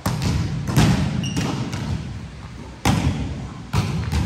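Volleyballs being spiked and bouncing on a gym floor: about five sharp thuds, each trailing off in a short echo.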